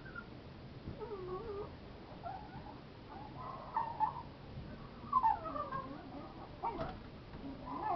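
A young puppy whimpering in about five short, high cries that rise and fall in pitch, with a light knock about seven seconds in.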